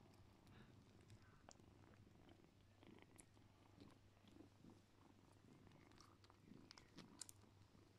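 Domestic cat purring faintly and steadily while kittens nurse, with a few soft clicks, the sharpest about seven seconds in.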